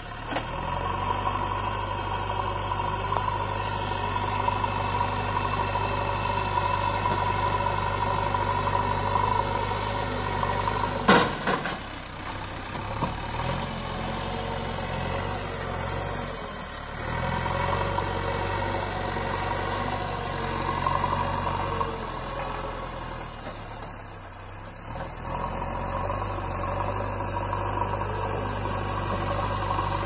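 JCB backhoe loader's diesel engine running steadily as the machine works its front bucket through loose soil, its note dipping briefly a few times. A single sharp clank about a third of the way in.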